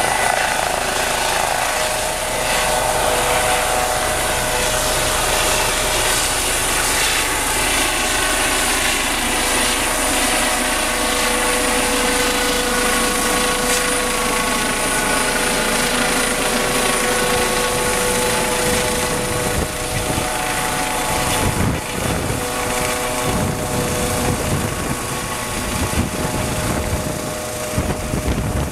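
Eurocopter EC135 helicopter lifting off and climbing away, its turbine whine and rotor noise running loud and steady. Partway through, the whine drops slightly in pitch.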